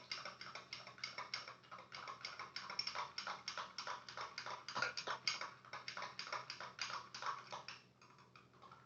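A spoon stirring a liquid mixture briskly, clicking against the sides of the container about four or five times a second, dying away about eight seconds in.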